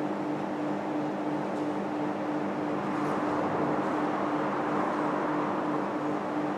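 Steady mechanical hum with a rushing noise, holding one even pitch throughout.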